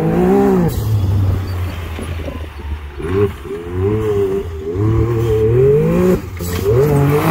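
Side-by-side UTV engine revving up and down repeatedly as it is driven hard over a dirt track, the pitch climbing and dropping several times, with a sudden break about six seconds in.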